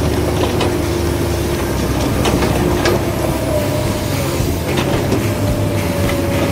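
Radio-controlled model trucks and excavator running: a steady mechanical hum with a thin higher motor whine joining about halfway, and a few scattered clicks.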